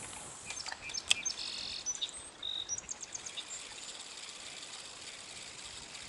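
A songbird singing a quick run of short, high chirps and trills in the first half, over the faint steady rush of a small stream.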